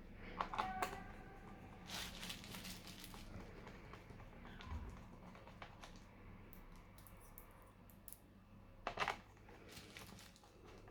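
Scattered light clicks, taps and rustles of hands handling a laptop and its small parts, with the loudest rustle about nine seconds in.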